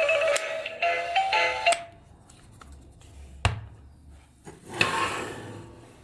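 A simple electronic melody of plain tones that stops about two seconds in, followed by a single sharp click and a brief rustle near the end.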